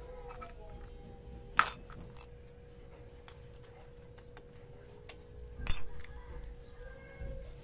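Metal wrench clinking against the bolts of a motorcycle engine case: two sharp clinks with a brief ringing, about four seconds apart, with small ticks of tool handling in between.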